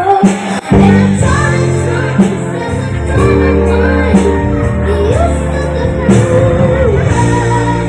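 A child singing a song over loud backing music, the voice gliding and holding notes above steady accompaniment.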